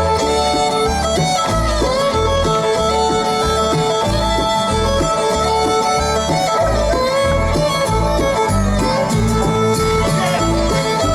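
Bluegrass band playing an instrumental break, with the fiddle taking the lead over a steady, pulsing bass-and-rhythm beat.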